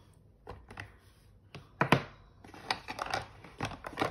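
Acrylic stamping blocks clicking and knocking on a desktop as stamps are mounted on them: a string of irregular hard taps, the loudest about two seconds in.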